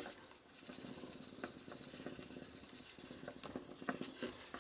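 Faint, irregular light clicks and scraping of a wooden modelling stick rubbed over a plastic sheet, thinning the edges of cold porcelain petals underneath.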